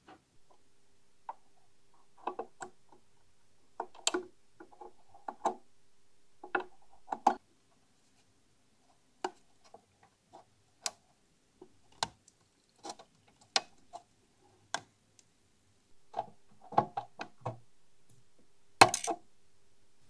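Irregular small clicks and taps as a soldering iron and wire are worked against a switch's solder lugs on a sheet-metal amplifier chassis. A faint steady hum sits under the first seven seconds and the last four.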